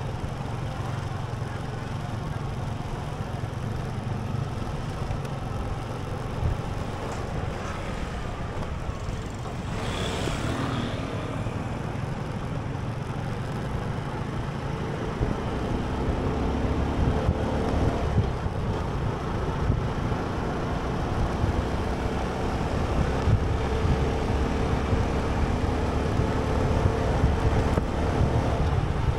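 Road vehicle engine and traffic noise with wind buffeting the microphone, a steady low rumble throughout. About ten seconds in there is a brief louder passing swell, and in the second half the engine tone rises a little in pitch and level.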